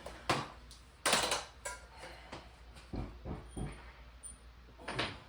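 A series of knocks and clatters from tools and hardware being handled and set down against hard surfaces, with a louder scraping clatter about a second in and several dull thumps later on.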